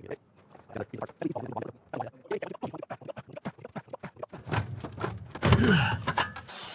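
Irregular knocking and clattering, several light knocks a second, as objects are handled and moved, with a louder scrape and a falling squeak about five and a half seconds in.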